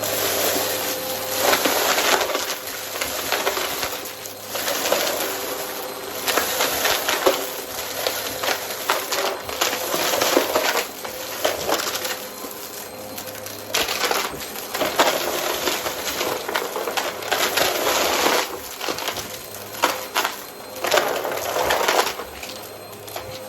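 Vacmaster vacuum cleaner running, its motor a steady hum under repeated loud stretches of crackling rattle, each a second or two long.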